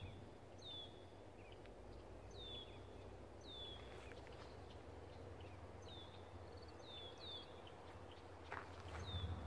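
A bird calling repeatedly, a short high chirp that slurs downward, about once every one to two seconds, over faint steady outdoor background noise.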